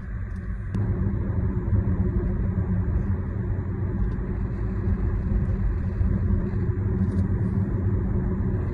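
2015 Audi S8's twin-turbo 4.0-litre V8 and tyre noise heard from inside the cabin, a steady low drone that gets louder less than a second in as the car pulls away and accelerates, then holds.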